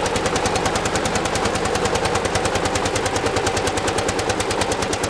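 Lanz Bulldog tractor's single-cylinder two-stroke hot-bulb engine running hard under load on a tractor pull, a steady, rapid beat of about ten firing strokes a second.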